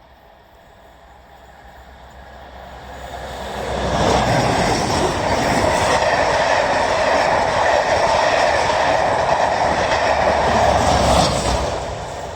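High-speed passenger train passing at speed close by, its wheels rushing on the rails. It builds over the first few seconds, runs loud and even, then falls away sharply near the end as the train clears.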